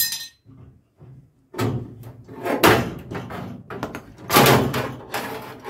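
Locking C-clamp pliers released from a bubble-arch panel: a sharp metallic snap with a brief ring, then a run of loud knocks and rattling as the freed panel springs up against the car's wheel arch.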